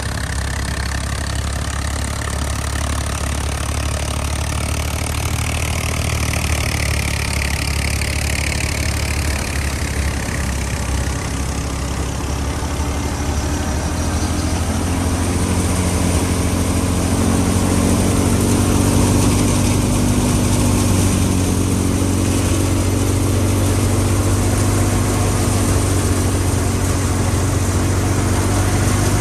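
Fiat 480 tractor engine running steadily, driving a wheat thresher machine, with the thresher's continuous mechanical rumble. About halfway through the drone grows a little louder with a clearer steady hum.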